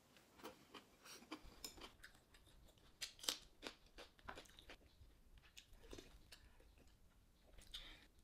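Eating sounds from a meal of braised pork ribs and kimchi: a quiet run of sharp clicks and crunches, the loudest about three seconds in.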